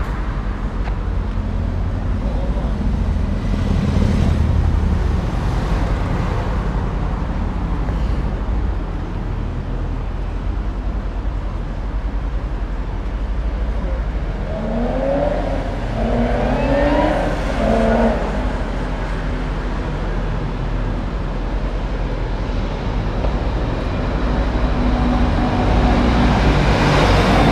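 Car engines running with a steady low rumble and passing traffic, and an engine's pitch starting to rise at the very end as a car accelerates.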